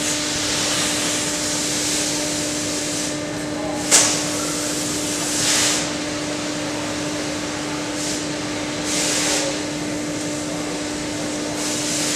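A machine running steadily with a constant hum and a broad hiss, with a sharp knock about four seconds in and two short swells of hissing a little later.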